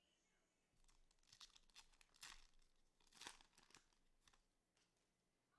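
Faint tearing and crinkling of a cellophane-wrapped football card pack being ripped open, with two sharper rips a little over two and three seconds in.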